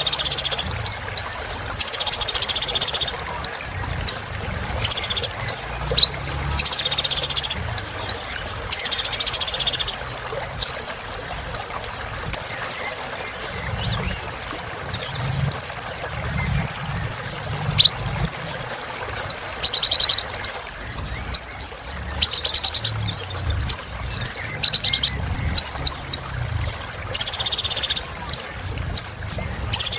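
A kolibri ninja sunbird singing continuously: rapid, thin, high-pitched chirps and twittering trills, mixed with short buzzy rattles.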